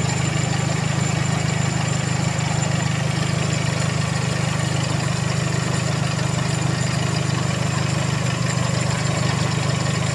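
Toyota Corolla's 2E four-cylinder engine idling steadily with the air-conditioning compressor engaged.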